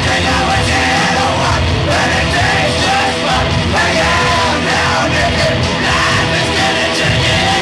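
Loud live rock music from a band with electric guitar, with a singer yelling into the microphone over it.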